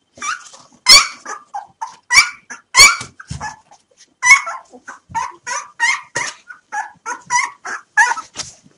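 Newborn Rafeiro do Alentejo (Portuguese mastiff) puppies, three days old, crying in short, overlapping squeals and whimpers, about three a second. These are the hungry cries of unfed pups waiting for their milk.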